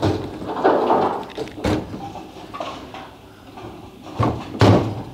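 Bowling alley clatter of balls and pins: a short rumbling clatter about half a second in, then a few sharp knocks, the loudest pair near the end.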